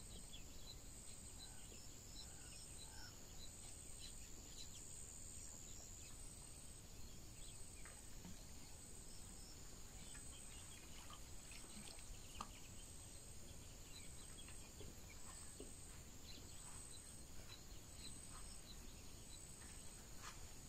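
Faint outdoor ambience: insects trilling steadily at a high pitch, with scattered small ticks and chirps over a low, even background noise.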